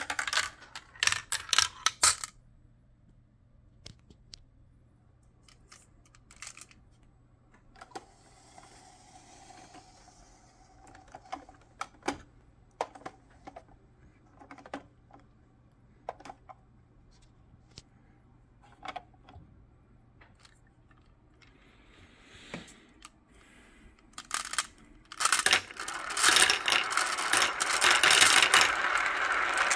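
Glass marbles running through a clear plastic marble run: scattered clicks and knocks as they drop through the tubes and tracks. Near the end they turn into a dense, continuous rattle as many marbles roll round a plastic funnel bowl together.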